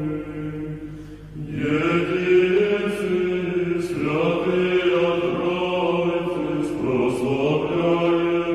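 Slow Orthodox liturgical chant sung on long held notes. It grows louder and fuller about a second and a half in.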